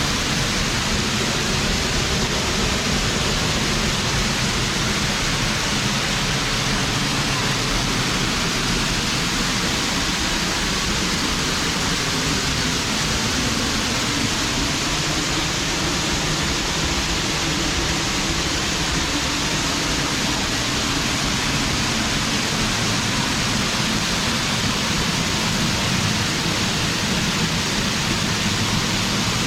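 A 25-foot waterfall pouring in a steady, unbroken rush of falling water.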